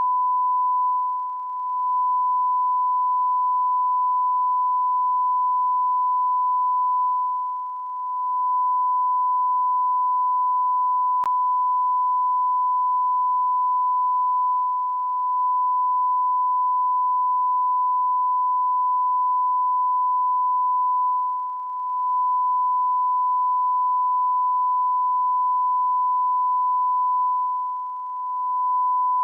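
Continuous electronic beep: a single steady, high-pitched pure tone held without a break, like a censor bleep left on. Its loudness dips briefly every six or seven seconds.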